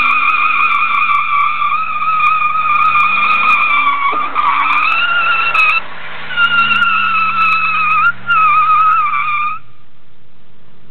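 Ford F-150 rear tire squealing as it spins in place during a power-brake burnout, a loud, steady, slightly wavering squeal over the truck's engine revs rising and falling. The squeal breaks off briefly twice and stops a little before the end.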